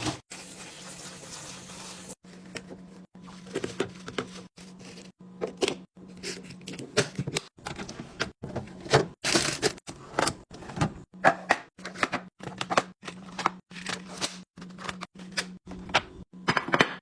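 Many quick clicks, taps and knocks of packaged snacks and plastic containers being handled and set down while restocking, over a steady low hum.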